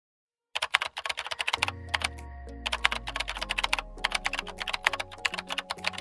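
Rapid computer-keyboard typing clicks starting about half a second in, with background music and a low bass line entering about a second later under the typing.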